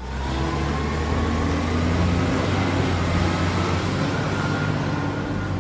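Heavy vehicle engine running steadily with a low rumble and a faint slowly rising whine, fading near the end.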